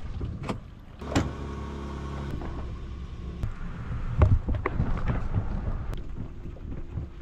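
Knocks and clunks of a loaded fishing kayak's hull and gear as it is hauled up a concrete ramp and loaded into a pickup truck bed, over a steady low rumble. The loudest knocks come about a second in and about four seconds in.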